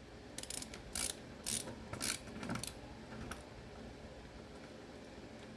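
Small clicks and rattles of computer parts being handled and fitted together by hand, about six short clicks in the first three and a half seconds, then quiet handling.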